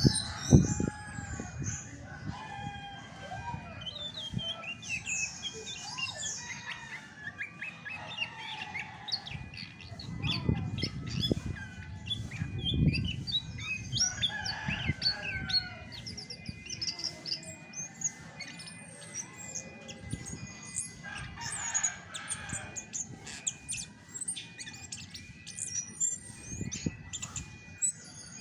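Chestnut-backed thrush (anis macan) singing a long, varied run of quick chirps, whistles and short rising and falling notes, with a few low thumps mixed in.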